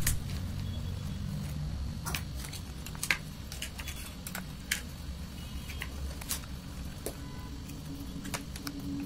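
Plastic spoons clicking and scraping against a plastic bowl as a thick paste is stirred: irregular sharp taps, a few louder ones, over a steady low background rumble.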